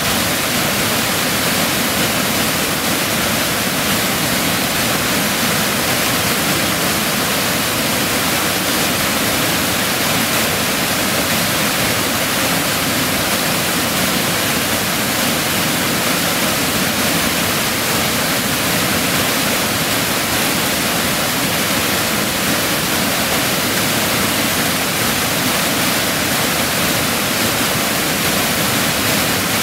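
Waterfall's white water pouring over rock ledges, a loud, steady, unbroken rush of water.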